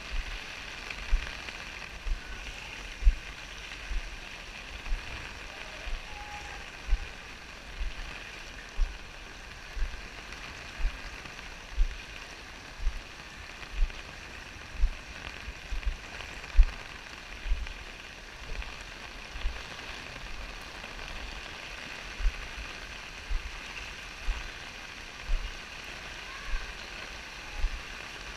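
Steady hiss of rain, with short low thumps about once a second.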